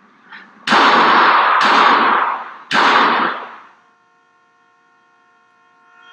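Three pistol shots in quick succession, each ringing out with a long echo. After the last echo dies away, a distant car horn starts sounding, one steady note held without a break.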